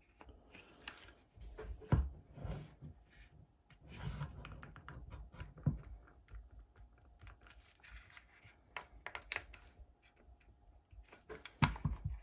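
Scattered small clicks, taps and knocks of hands handling and fitting the plastic and metal internal parts of a Makita cordless impact driver during reassembly, with a few louder knocks near the end.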